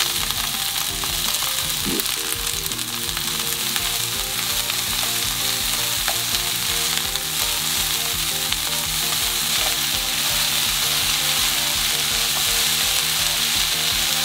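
Shredded cabbage and sliced onion sizzling steadily in a hot frying pan as they are stirred and tossed with long cooking chopsticks.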